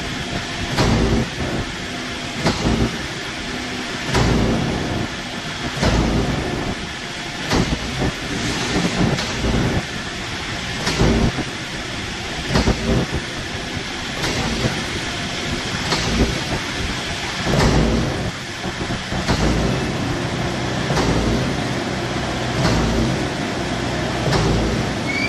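Concrete mixer pump running under test: a steady machine hum with a knock at each pumping stroke change, repeating regularly about every one and a half to two seconds.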